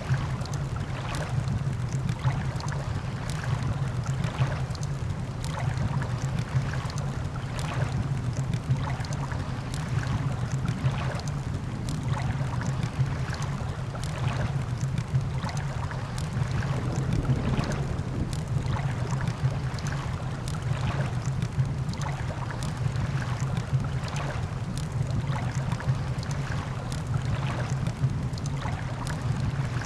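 Ocean surf with a steady low rumble, overlaid with campfire crackling: irregular sharp pops and snaps throughout.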